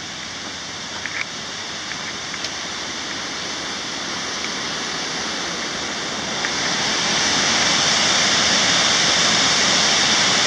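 Paulina Creek Falls, a twin waterfall pouring over a rock cliff: a steady rush of falling water that grows louder about six seconds in.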